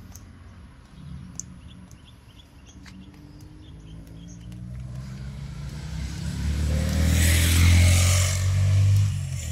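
A motor vehicle passing close by: its engine hum and road noise build over several seconds, are loudest about seven to nine seconds in, then fall away.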